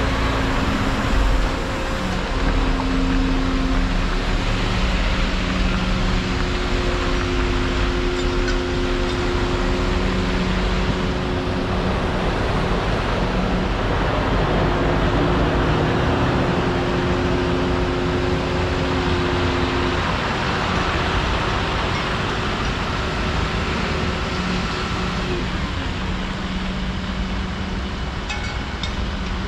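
Volvo 235EL excavator running and working, its engine and hydraulics giving a steady hum whose pitch shifts a few times, mixed with road traffic driving past close by, a bus at the very start.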